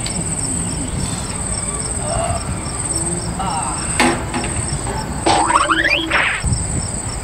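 Crickets chirping steadily, with a sharp knock about four seconds in and a short rising squeal a little after five seconds.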